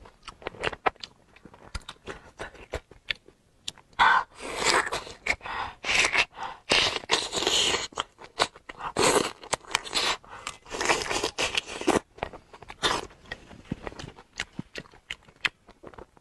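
Close-miked eating of raw marinated shrimp: wet clicks and small scrapes as the shrimp are peeled, then heavier sucking and chewing from about four seconds in until near the end, when it falls back to scattered clicks.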